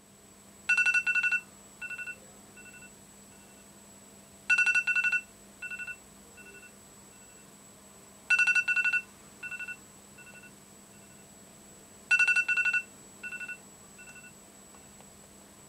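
Mobile phone electronic tone sounding four times, about four seconds apart. Each time it gives two loud beeps followed by fainter, echoing beeps that fade away. A faint steady hum lies underneath.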